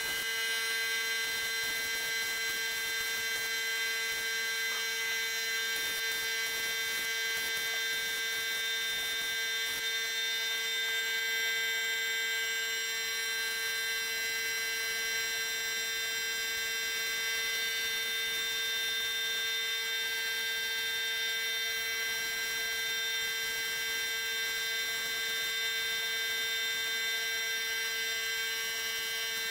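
Steady whining hum of an electric motor running, one pitch with many overtones and a faint hiss over it.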